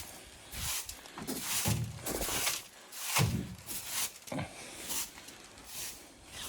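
Boots crunching in snow: a run of irregular footsteps, each a short crunch with a dull thud beneath it.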